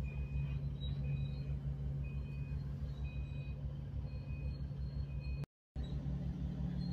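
Heavy mining machinery's diesel engine running steadily with a low hum, while a backup alarm beeps about once a second. The sound drops out for an instant about five and a half seconds in, after which the engine continues without the beeps.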